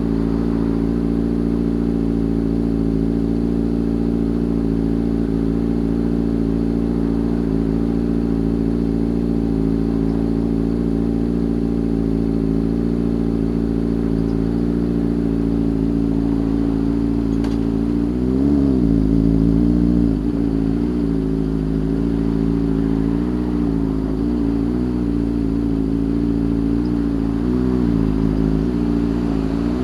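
Motorcycle engine running at a steady speed, heard from on the bike. About eighteen seconds in its pitch rises and falls, and it wavers with small throttle changes after that.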